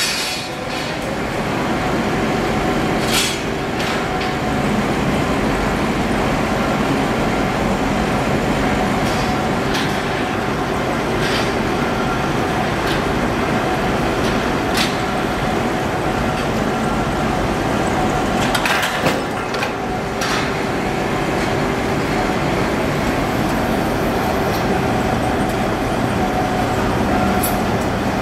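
Steady roar of a forced-air furnace heating steel harrow discs, together with running workshop machinery and a faint steady hum. A few sharp metal clinks and clanks of rods and discs come through now and then, most clearly around the middle.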